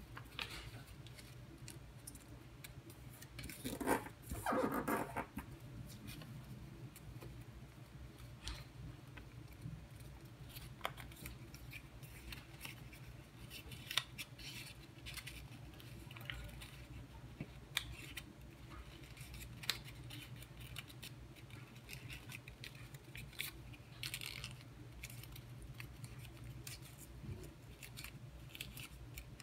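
Origami paper being folded and creased by hand: scattered soft crinkles and crisp crackles, with a louder rustle about four seconds in. A steady low hum runs underneath.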